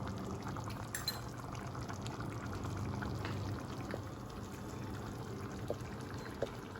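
Chicken curry gravy bubbling in a pot over a high gas flame: a steady low bubbling with a few small pops.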